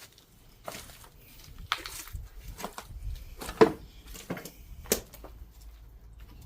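Footsteps crunching and knocking on debris, irregular, with the loudest knock about three and a half seconds in.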